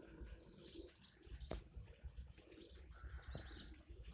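Faint birdsong: small birds chirping in short high phrases, with a low cooing call underneath.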